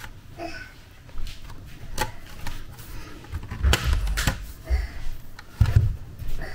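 A plastic pry tool working along the seam of a laptop's aluminium bottom case, with irregular sharp clicks and taps as the case is levered apart. Several low handling thuds come in the second half.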